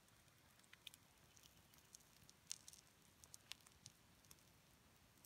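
Faint, irregular crackles and pops from a wood fire burning under a flat cooking stone, with the meat on the hot stone cooking.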